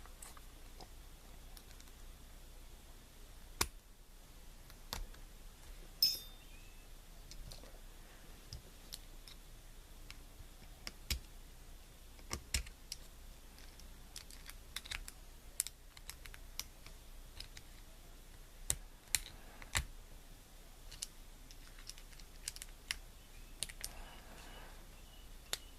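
Scattered small metallic clicks and taps of tools working at a lock cylinder's tail piece, whose retaining spring is catching. One louder click about six seconds in has a brief high ring.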